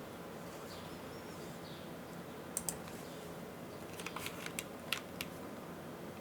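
Matrix Labs 6XV3.0 Corsa mechanical keyboard with WS Black heavy tactile switches on an aluminium plate and GMK keycaps, typed on sparsely: a couple of keystrokes, then a quick run of several more about four seconds in.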